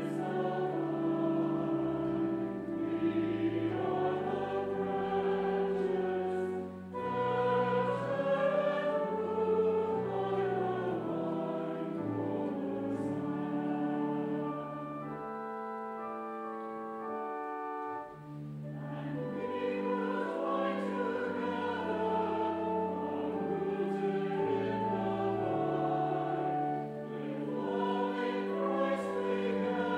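Church choir singing a slow piece in held chords. It thins out and quietens for a few seconds midway, then swells again.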